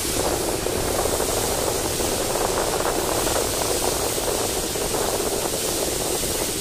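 Steady running noise of a moving passenger train heard through an open coach window: a dense rattle and rumble of wheels on rail, with a steady hiss above it.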